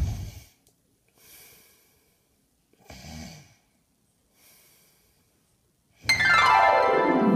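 Music dies away, then three faint breathy snores come about a second and a half apart. About six seconds in, a loud falling glide of many stacked tones sweeps down, a keyboard-style sound effect.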